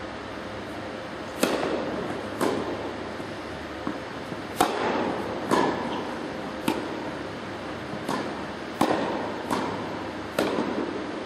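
Tennis rally: a tennis ball being struck by rackets and bouncing on the court, about nine sharp hits roughly a second apart, each echoing in a large indoor hall.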